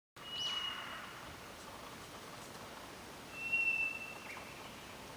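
White's thrush (Zoothera aurea) singing: two long, thin, steady whistles on a single pitch, about three seconds apart.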